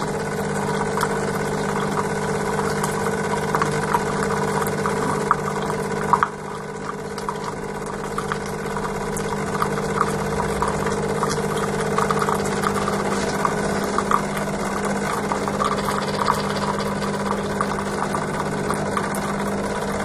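Jura GIGA XJ9 bean-to-cup coffee machine's pump running steadily as it dispenses hot water into a mug, with a spoon clicking against the mug as the drink is stirred. The machine hum stops at the very end.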